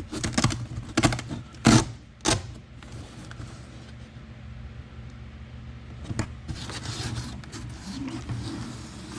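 Hands working a carpeted bed-liner panel against the truck bed: a run of sharp taps and knocks, then quieter rustling and scraping from about six seconds in, over a steady low hum.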